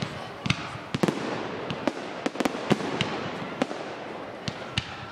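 Fireworks going off: a rapid, irregular string of sharp bangs and cracks, about a dozen in five seconds, over a steady hiss.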